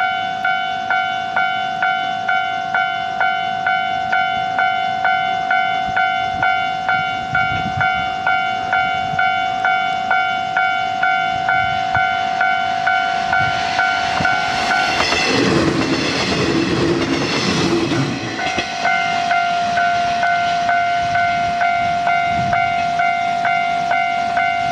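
Japanese level-crossing warning bell ringing steadily, about two strokes a second. About fifteen seconds in, a KiHa 40-series diesel railcar rumbles over the crossing, drowning the bell for about three seconds, and then the bell carries on.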